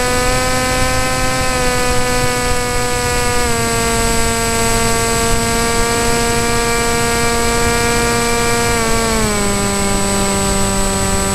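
Radio-controlled model aircraft's motor and propeller, heard from the onboard camera: a steady pitched drone over a rush of wind. The pitch rises slightly at the start, drops about three and a half seconds in and again about nine seconds in as the throttle changes. A thin high whine runs underneath.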